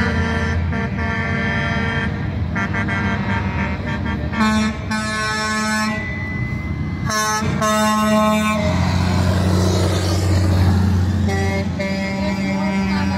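Trucks' air horns blowing in repeated blasts, several horns sounding together, over the steady rumble of diesel engines. The horns pause for a couple of seconds in the second half while an engine sound swells, then start again near the end.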